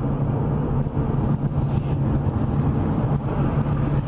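Steady engine and road noise of a moving car heard from inside the cabin through a dashcam, a constant low drone under an even rumble.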